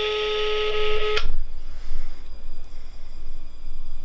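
Mobile phone ringback tone of a call that is ringing and not yet answered: a steady beep that stops about a second in, then the silent part of the ringing cycle.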